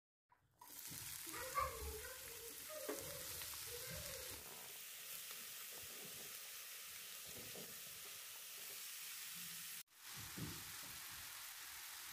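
Diced onion, green pepper and grated carrot sizzling in hot vegetable oil in a frying pan as they are pushed in off a plate, a steady hiss. In the first few seconds there is a low knock and a short wavering higher sound.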